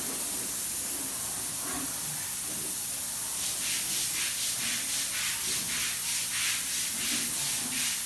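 Paint spray gun hissing steadily as it sprays paint, with an even pulsing about three times a second setting in past the midpoint.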